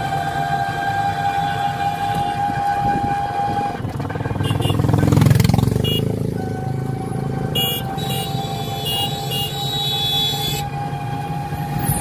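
Ride in an electric rickshaw (toto): a steady high-pitched whine over road rumble, the whine dropping out for about two seconds midway while a louder low rumble swells up.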